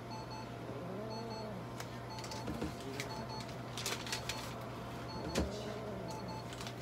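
Veterinary light-therapy unit running during red-light treatment of a cat, giving short high electronic beeps about once a second over a steady low hum.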